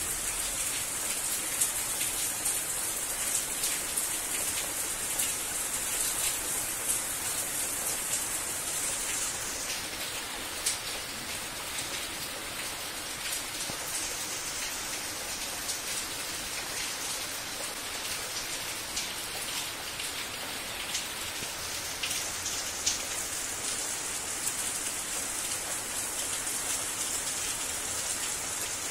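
Steady rain falling on a garden: a continuous hiss with many separate drops ticking close by. It eases slightly for a stretch in the middle, then picks up again.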